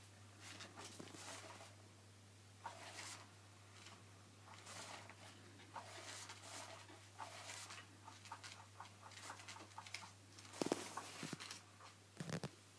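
Kittens' paws scrabbling and pattering on a rug: faint, irregular scratchy rustles, with two louder thumps in the last two seconds.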